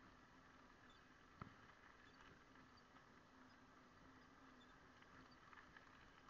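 Near silence: a faint hiss with a low steady hum and scattered faint ticks, and one sharper click about a second and a half in.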